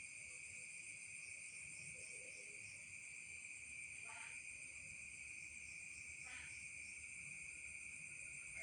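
Faint, steady night chorus of crickets and other insects, a continuous high trill. Two short, unidentified calls stand out from it, about four and six seconds in.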